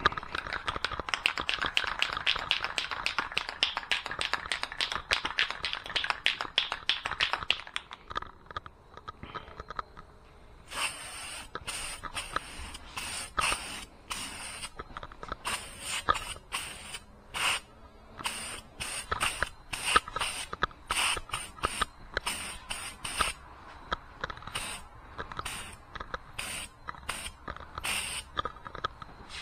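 Aerosol can of Rust-Oleum truck bed liner shaken hard, its mixing ball rattling rapidly for about seven seconds. From about eleven seconds in, the can sprays in many short hissing bursts, each a second or less.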